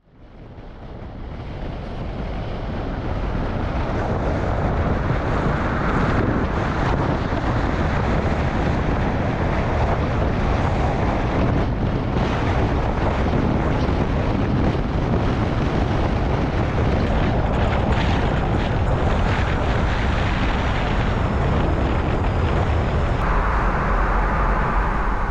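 Steady road and wind noise of a car driving at highway speed, picked up by a camera in the moving car. It fades in over the first few seconds, and its tone shifts near the end as the car enters a tunnel.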